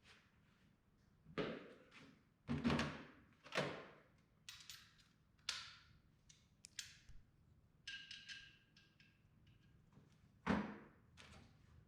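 Scattered knocks and clunks of hand tools and metal parts being handled while the bottom cover of a tractor's touch control hydraulic box is taken off; the loudest thuds come about two and a half to four seconds in and again near the end, with a few short ringing metal clinks about eight seconds in.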